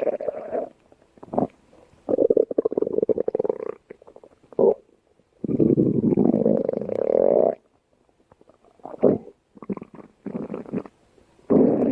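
Stomach growling: rumbles in irregular bursts, some brief and some lasting up to about two seconds, with quiet pauses between them.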